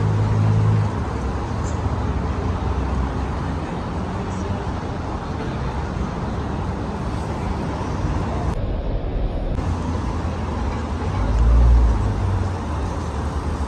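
City street traffic noise, steady, with a louder low rumble swelling near the end.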